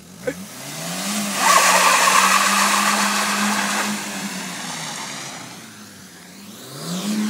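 Small hatchback's engine revving up and held at high revs while its tyres spin and scrub on wet tarmac as it circles, a loud hiss over the engine note. The revs drop away about five seconds in and climb again near the end.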